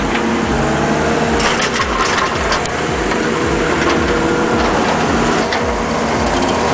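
Heavy machinery's engine running steadily with a regular low beat, joined by scattered knocks and crunching of material being worked.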